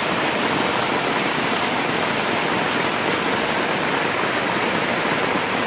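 Heavy rain falling, a steady hiss of water.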